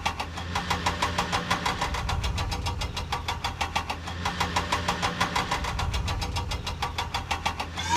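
Cartoon vehicle engine sound effect: a rapid, even chugging of about ten beats a second over a low hum.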